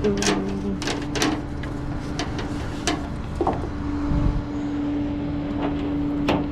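Tow truck engine idling steadily with a constant hum, while a string of sharp clicks and metal knocks sounds over it at irregular intervals.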